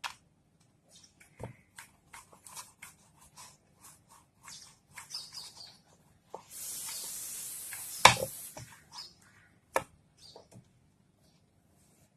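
Rolling pin working dough on a board, with scattered light taps and rubbing. Partway through there is a hiss of about a second and a half, ended by one sharp, louder knock.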